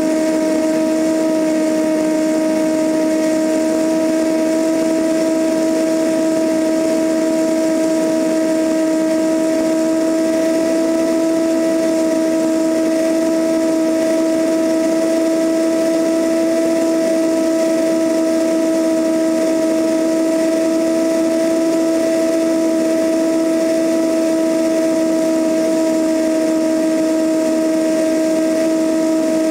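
Cessna 172N's four-cylinder Lycoming engine and propeller running steadily in cruise flight, heard from a camera mounted outside the fuselage, so rushing airflow noise mixes with a steady, unchanging drone.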